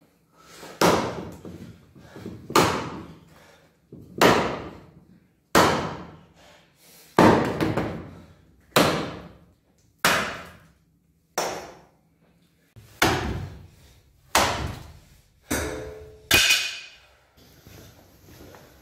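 Hand axe chopping into a wooden log, about a dozen heavy blows roughly every one and a half seconds, each echoing briefly in a small hard-walled room. The last blow, near the end, has a metallic ring.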